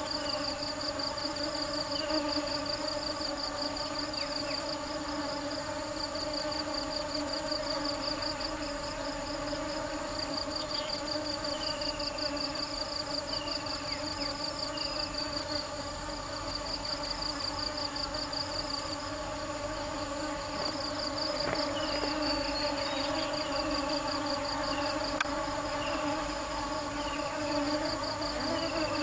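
Steady buzzing drone of honey bees, with a rapid, pulsing high trill over it and short falling chirps every second or two.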